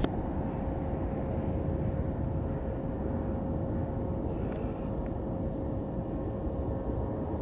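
Jet engines of an Airbus A330-200 on final approach: a steady, low rumble with a faint steady hum.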